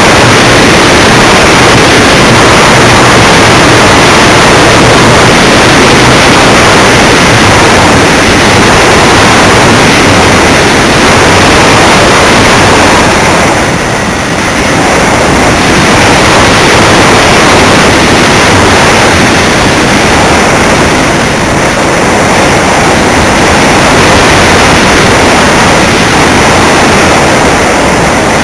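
Loud, steady rush of airflow and motor noise on a camera riding aboard a radio-controlled model airplane in flight, easing off briefly about halfway through.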